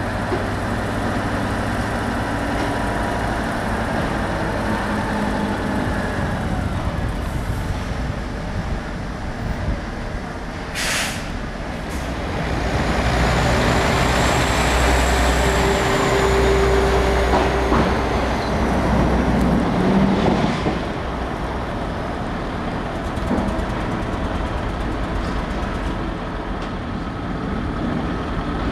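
Heavy diesel trucks, among them a Volvo FH, running as they pull away and drive past close by. A short air-brake hiss comes about eleven seconds in.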